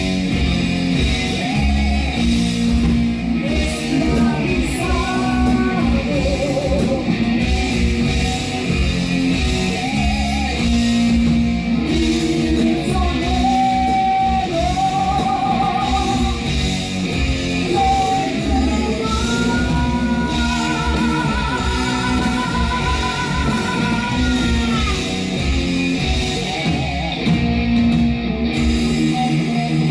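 Heavy metal band playing live with distorted electric guitars and drums. The sound is loud and dense, and a lead melody holds long, wavering notes through the middle.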